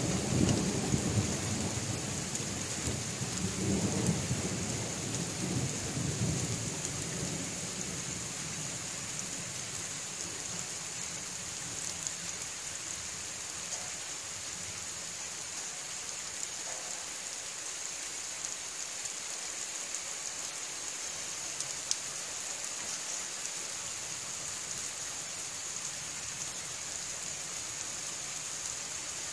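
Rain falling steadily, with a roll of thunder rumbling through the first several seconds and dying away.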